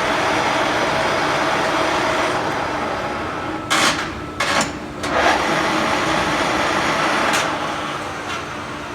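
Engine lathe running: a steady whir of the spindle and gear train over a low motor hum, with four sharp clunks in the middle, the whir easing off near the end.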